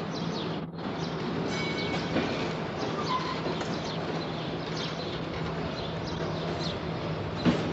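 A steady low hum over a background haze, with short bird chirps scattered through it and a brief knock near the end.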